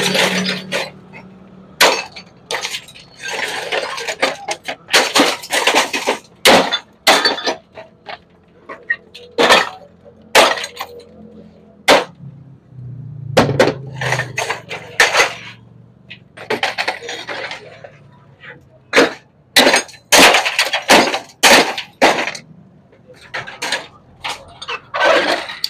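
Irregular hammer blows breaking apart a CRT television in a metal tub: sharp knocks, some followed by the crunch and clatter of broken plastic and glass pieces falling against the tub.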